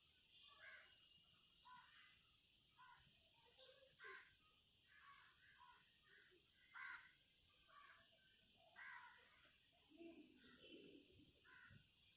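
Faint birds calling outdoors at dusk, many short calls scattered throughout, over a steady high hiss.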